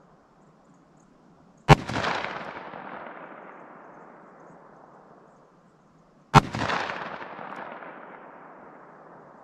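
Two shots from a .45 Colt handgun firing Hornady Critical Defense 185-grain loads, about 1.7 s and 6.4 s in. Each sharp report is followed by a long echo that fades over a few seconds.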